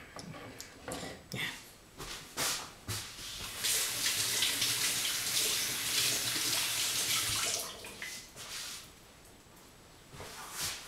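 Water running from a kitchen tap for about four seconds, starting about three and a half seconds in, after a few short knocks.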